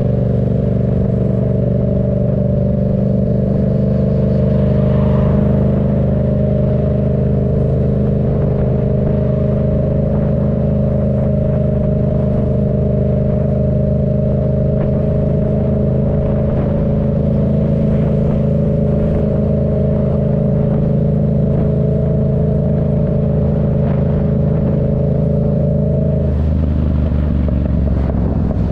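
Yamaha MT-07's 689 cc parallel-twin engine running through a Black Widow aftermarket exhaust, holding a steady note for most of the time. Near the end the note changes to a lower, rougher rumble.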